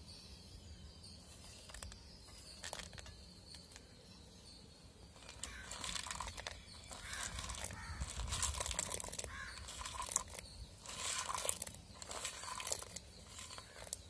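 Bird calls outdoors, coming again and again through the second half, over a low steady rumble.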